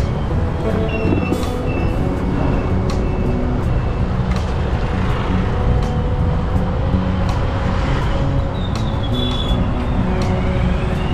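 Road traffic running steadily, vehicles passing on the road, with background music of short stepping notes over it.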